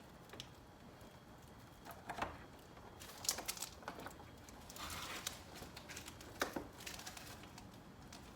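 Faint, scattered clicks and rustles of hands handling plastic headlight parts, a few separate bursts about a second apart.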